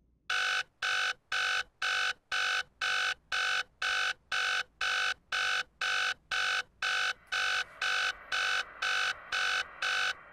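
Mobile phone ringing for an incoming call: an electronic ringtone of short, even beeps, about two a second, that stops near the end.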